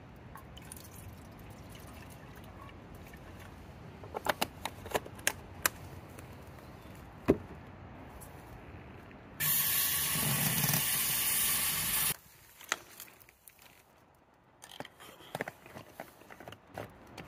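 Cleaning liquid sprayed in one continuous hiss of nearly three seconds that cuts off suddenly. Scattered clicks and taps of handling come before it.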